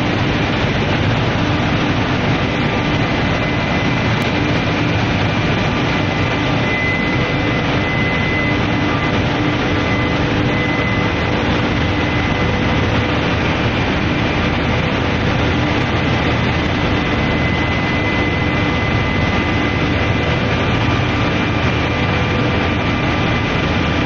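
Continuous induction heat-treatment furnace line running: a loud, steady, even industrial noise with faint steady whines over it.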